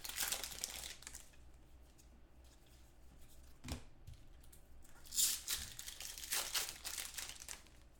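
Foil trading-card pack wrappers being torn open and crinkled by hand, in bursts at the start and again from about five seconds in, with a soft knock just before the four-second mark.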